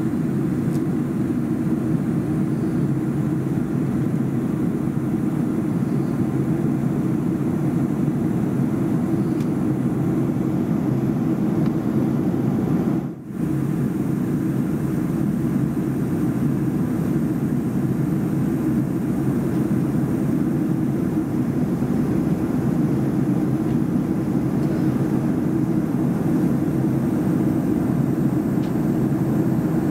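Steady cabin noise inside a Boeing 737-300, a dense low hum from the CFM56-3 engines and the airflow, with a brief dip about thirteen seconds in.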